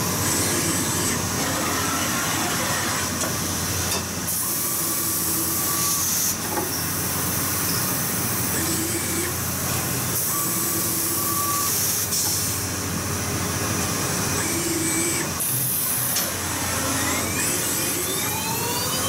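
High-speed CNC milling machine cutting an aluminium sheet: a steady high spindle whine and cutting hiss, with short steady hums coming and going as the axis drives move the head. Near the end a rising whine, as of the spindle speeding up.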